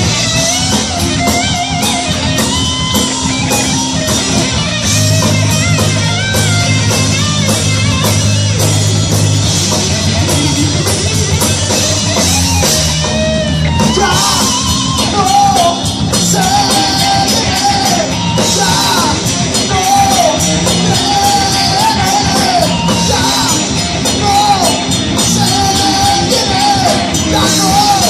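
Live rock band playing loudly: distorted electric guitar, bass guitar and drum kit, with a male lead singer coming in about halfway through.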